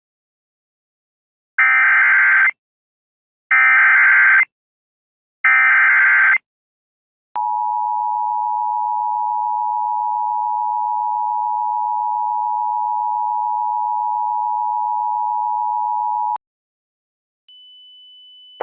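Emergency Alert System tones. First comes the SAME header: three short, harsh bursts of digital data about two seconds apart. Then the two-tone EAS attention signal holds steady for about nine seconds and cuts off sharply. A faint high steady tone starts near the end.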